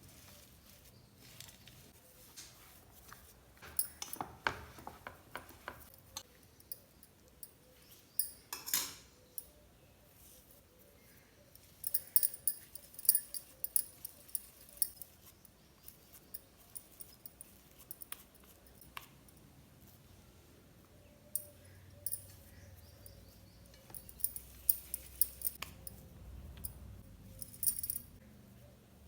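Kitchen utensils clinking and tapping against dishes in irregular bursts, busiest about twelve to fifteen seconds in and again near the end.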